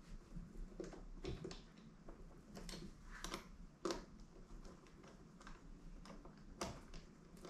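Faint, scattered light clicks and ticks of a small Allen wrench working the mounting fasteners on a motorcycle windshield, with sharper clicks about four seconds in and again near the end.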